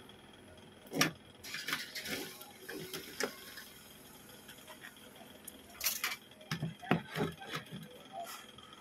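A few light clicks and knocks from hands moving a multimeter and wiring about on a workbench. They come in two clusters, one from about a second in and one around six to seven and a half seconds in.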